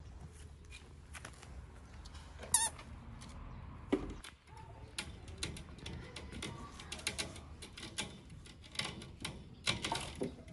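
A long-haired cat climbing a mesh window screen, its claws catching and pulling at the mesh in a rapid, irregular run of clicks and scratches, with a low thump about four seconds in. A brief high wavering call sounds about two and a half seconds in.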